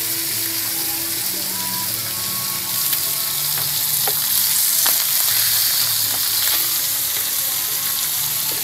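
Marinated salmon fillet frying in a little olive oil on a griddle pan: a steady sizzling hiss with scattered pops and crackles.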